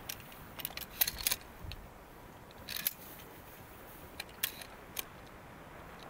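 Photography equipment being handled: irregular small sharp clicks and light rattles, a few close together about a second in and more around three and four and a half seconds in, over a steady low hiss.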